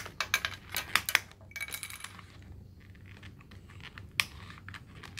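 Hard plastic L.O.L. Surprise ball clicking and tapping under fingers and fingernails as its sticker layer is picked open: a quick run of sharp clicks in the first two seconds, then scattered single clicks.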